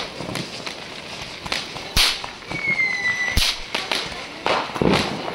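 Fireworks and firecrackers going off: scattered sharp cracks with two louder bangs about two and three and a half seconds in, a short whistle sliding slightly down just before the second, and a cluster of bangs near the end.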